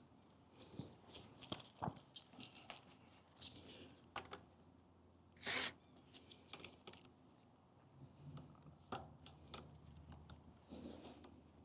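Light scattered clicks and taps of hand tools and bike parts being handled during brake caliper setup, with one short hissy whoosh about five and a half seconds in.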